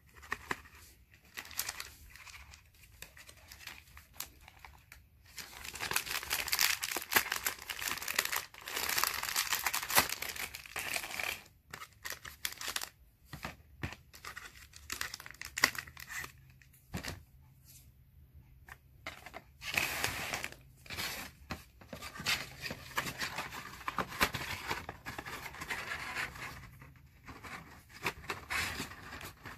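Crinkling of plastic snack-bar wrappers and rustling, rubbing card stock as the bars are handled and the paper hexagonal package is folded and its tabs tucked in. The noise comes in several stretches of a few seconds each, with small taps and clicks between.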